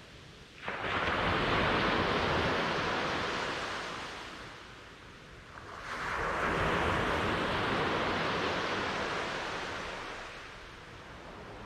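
Ocean waves breaking: one crashes in suddenly about a second in and washes out, then a second wave swells and breaks about six seconds in and fades away.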